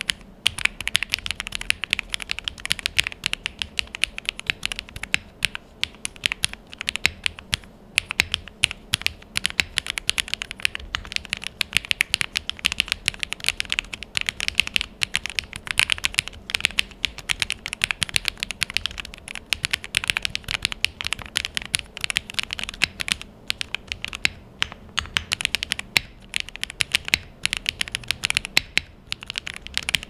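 Continuous fast typing on a QwertyKeys CUB65 65% custom mechanical keyboard with an aluminium case and Owlab Neon switches on a POM plate. A rapid, dense stream of key clicks with a slightly clacky tone.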